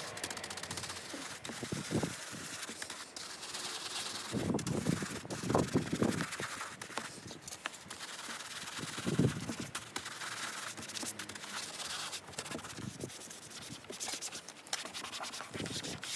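Stiff bristle brush scrubbing foaming upholstery cleaner into contoured plastic car door trim: a continuous scratchy rubbing, with several louder strokes about four to six seconds in and again around nine seconds.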